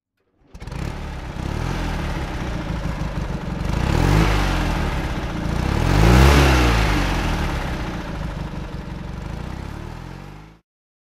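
1963 NSU Sport Prinz's air-cooled two-cylinder engine running and being revved twice, the second rev the higher and louder. The sound cuts off abruptly near the end.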